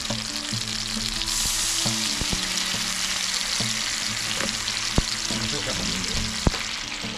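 Chopped vegetables and sugar sizzling in a hot pan as they caramelize. The sizzle grows louder about a second in. Two sharp clicks come near the end.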